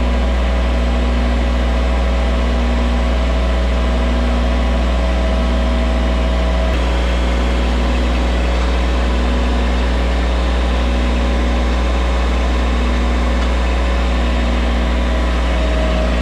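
Bobcat mini track loader's engine running steadily with a deep, even hum while it carries out a test lift of a stone step in a block clamp.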